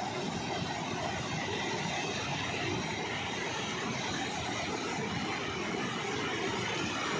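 Steady rush of white water from a dam's spillway release, tumbling over rocks in rapids.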